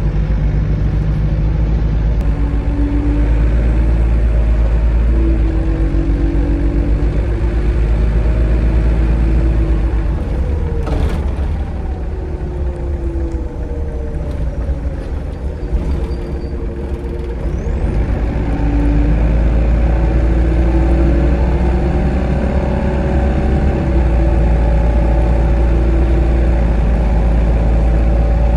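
Inside the cabin of an Optare Solo SR midibus on the move: the engine and driveline drone steadily. The drone eases off with falling pitch about ten seconds in, with a short click, then grows louder again as the bus pulls away about nineteen seconds in.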